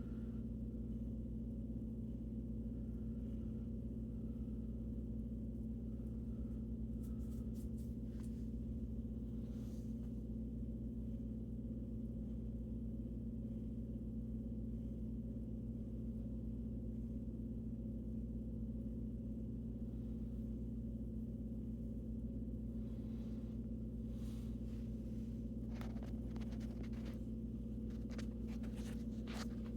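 Steady low-pitched hum with evenly spaced overtones, unchanging throughout, with a few faint clicks about a quarter of the way in and again near the end.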